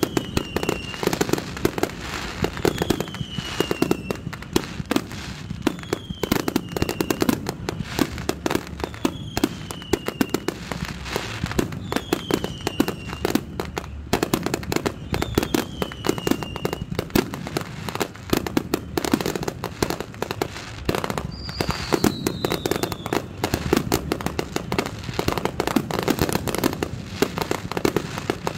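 Fireworks finale: aerial shells going off in a dense, unbroken run of bangs and pops. A short falling whistle repeats about every three seconds.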